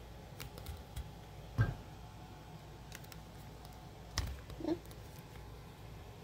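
A few light knocks and clicks of handling as a camera on a tripod is repositioned. The loudest knock comes about one and a half seconds in, and two more a little after four seconds.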